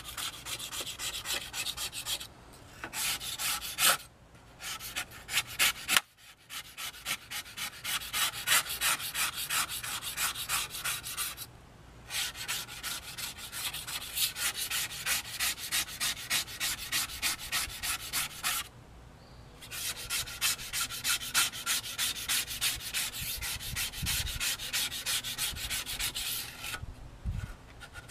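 Coarse 60-grit sandpaper scrubbing rust off the steel plate of an EC Atkins handsaw in rapid back-and-forth strokes. It comes in several bouts with short pauses between them.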